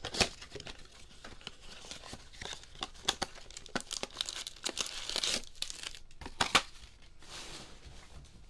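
Cardboard trading-card blaster box being torn open by hand, with ripping and crinkling of card stock and wrapping. There is a sharp rip just after the start, a run of smaller rips and crackles, and another loud snap about six and a half seconds in.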